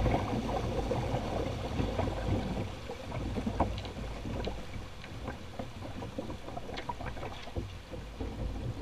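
Shallow river water rushing and gurgling over a rocky riffle around a canoe being poled upstream, with a low rumble and scattered light knocks.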